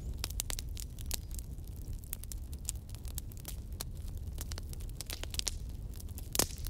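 Fire crackling: irregular sharp pops and snaps over a low steady rumble, with one louder pop near the end.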